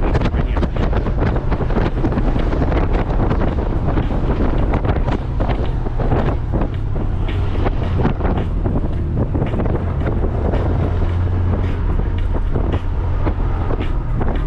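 Wind buffeting hard against the microphone over the steady low drone of a Honda Gold Wing motorcycle being ridden.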